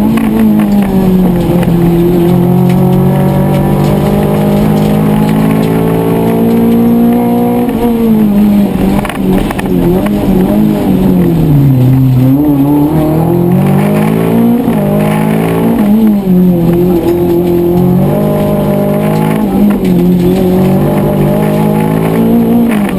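Rally car's engine heard from inside the cabin while the car is driven hard, the pitch climbing and falling with throttle and gear changes. It drops low about halfway through, then goes through several quick climbs and drops before running high and steady again.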